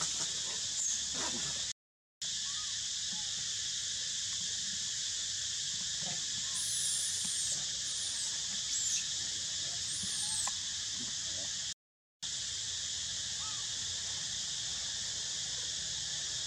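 Steady high-pitched drone of forest insects, with a few thin, high, squeaky calls in the middle. The sound cuts out completely twice for a moment.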